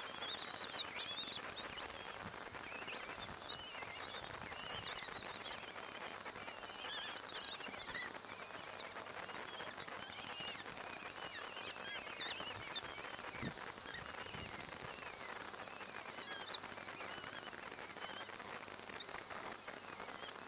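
Common kestrel chicks calling at the nest during a feeding: many short, high chirping calls that overlap throughout, over a steady hiss.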